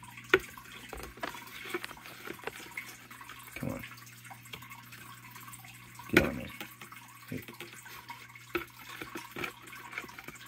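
Metal spoon clinking and scraping against a plastic container as it scoops in shallow water, with small splashes and drips. There are scattered light taps, and the loudest knock-and-splash comes about six seconds in.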